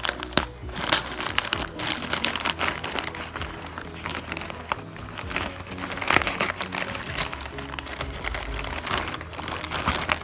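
Red plastic courier mailer bag crinkling and rustling in a run of irregular crackles as it is handled and opened, with music faintly underneath.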